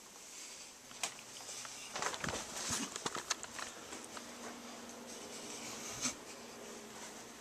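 Handling noise as the recording device is moved about: scattered knocks and rustles, densest about two to three and a half seconds in, over a faint steady hum.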